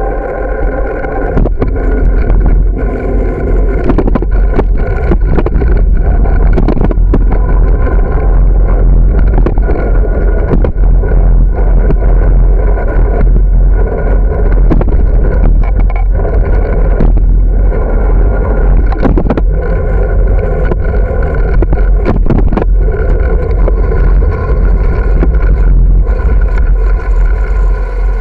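Heavy wind noise on the microphone of a camera riding on a moving bicycle, a steady deep rumble, with frequent short clicks and rattles as the camera jolts over the road surface.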